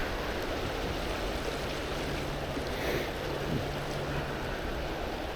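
Steady rush of high, fast floodwater in a river below a dam.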